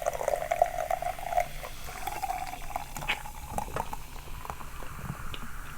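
Close-up wet crackling and small clicks of eating and drinking, the kind of mouth sounds played up for ASMR, with a steady mid-pitched hum through the first second and a half.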